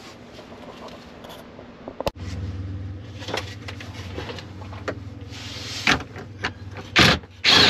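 Hands working on a UTV's plastic dash panel and wiring: a sharp click about two seconds in, then a steady low hum under light rustling, and a few loud knocks and scrapes of the plastic panel near the end.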